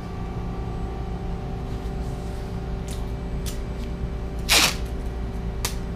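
Steady hum of machine-shop equipment with several steady tones under it, a few faint ticks, and one short, louder hissing burst about four and a half seconds in.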